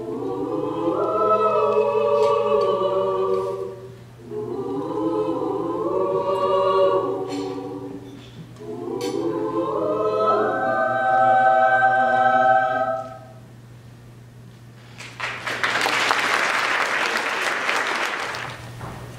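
Mixed choir singing in parts, three phrases with short breaths between them, the last ending about thirteen seconds in. After a brief pause, audience applause for about three seconds near the end.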